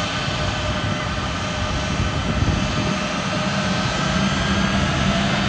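Boeing C-17 Globemaster III's four turbofan engines at taxi power: a steady jet roar with several high whining tones, rising slightly in pitch and getting louder near the end.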